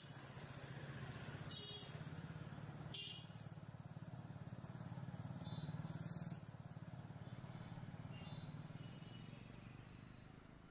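Faint street ambience: a motor vehicle engine runs steadily throughout, with a few short high-pitched chirps over it.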